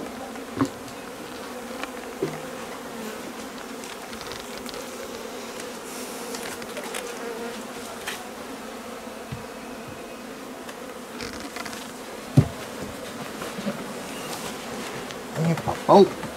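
Honeybees buzzing around open hives, a steady hum of many bees in flight as they make orientation flights. A few sharp knocks break the hum, the loudest about twelve seconds in and several more near the end.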